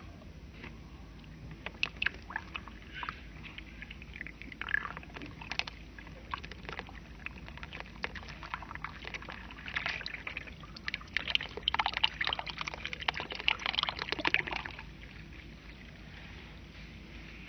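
Water pouring from a plastic cup into a tub of soil, with crackles and pops as it trickles in and soaks through. The popping is scattered at first, thickest in the second half, and stops shortly before the end.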